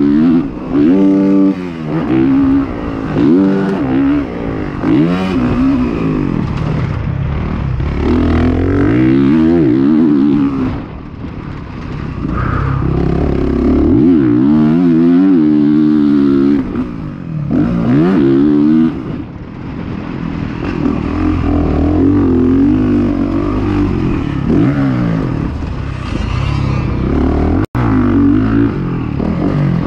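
Dirt bike engine heard from on the bike as it is ridden hard around a motocross track, its pitch repeatedly climbing under throttle and dropping at gear changes and roll-offs. Near the end the sound cuts out for a split second.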